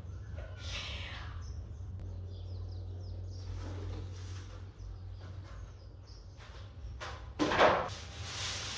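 Rustling and handling noises from unwrapping a new fridge's packaging, with a loud, sudden scrape or rustle about seven and a half seconds in, over a steady low hum.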